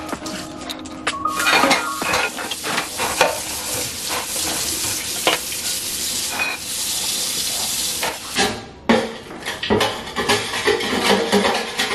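Dishes and cutlery clinking and clattering as a kitchen is tidied and dishes are put away, with a steady hiss for a couple of seconds past the middle.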